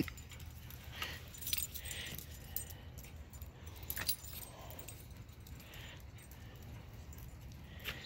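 Dog collar tags jingling faintly a few times as a dog moves about, over a low steady rumble.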